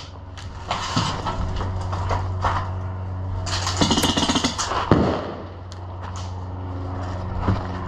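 A steady low hum runs throughout, with a few sharp airsoft gun pops scattered across it and a short hissing burst about four seconds in.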